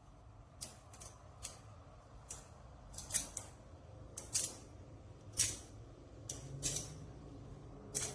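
Small plastic magnetic building cubes snapping together and being set down, a dozen or so sharp clicks at irregular intervals.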